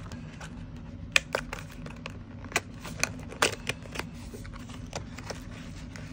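Small cardboard knife box being handled and its end flap pried open by hand: a string of light, uneven clicks and taps of card and fingernails.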